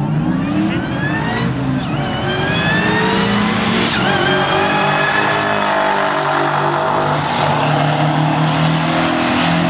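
Two drag-racing cars making a full-throttle pass, including a Dodge SRT. Their engines rev up through the gears, the pitch climbing and dropping back at each upshift, then holding a steadier note as the cars run on down the track.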